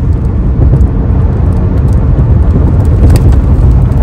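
Steady low rumble of road and engine noise inside a car's cabin while it drives at highway speed.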